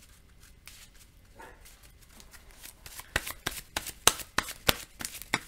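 Sleeved game cards being shuffled and handled on a playmat: quiet at first, then from about halfway in a quick, irregular run of sharp card snaps.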